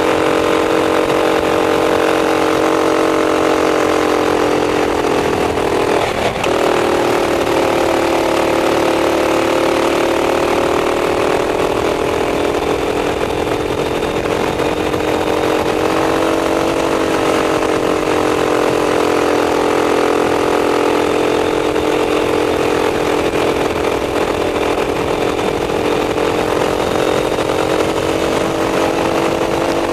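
Racing kart engine running hard, heard close up from on board the kart, its pitch dipping and climbing again several times with the throttle through the corners; a sharp brief drop in pitch comes about six seconds in.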